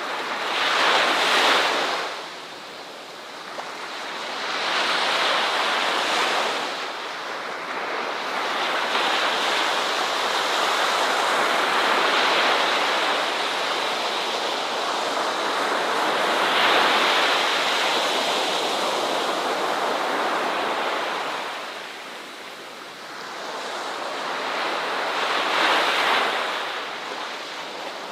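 Ocean waves breaking and washing up the shore, a rushing surf that swells and ebbs every few seconds, with one longer, sustained wash through the middle.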